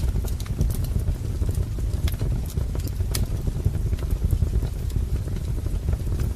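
Wood fire crackling: a steady low rumble with scattered sharp pops and snaps of burning firewood, several a second.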